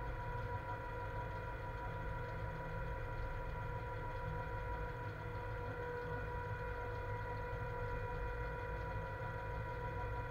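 Cab noise of a ČD Cargo class 130 electric locomotive under way with a heavy freight train: a steady low rumble overlaid by a constant hum of several steady pitched tones.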